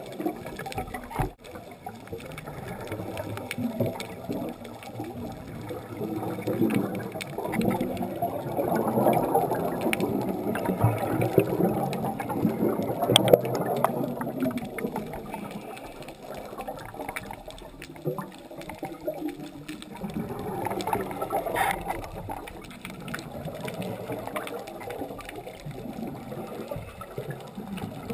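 Underwater gurgling and bubbling from scuba divers' exhaled air, swelling and fading in waves. A single sharp click about halfway through is the loudest moment.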